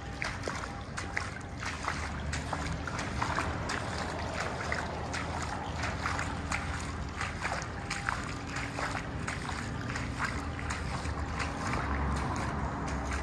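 Water trickling and dripping in a concrete tunnel: many irregular short taps over an even wash, with a steady low hum underneath.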